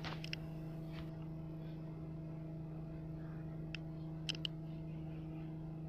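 Steady low electrical hum from a powered-on CRT television chassis on the bench, with a few faint light clicks: a couple just after the start and three about four seconds in.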